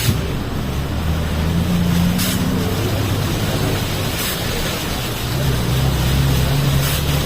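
Motor vehicle engine running, its pitch shifting up and down, over a steady rushing noise, with a few brief hissing swells.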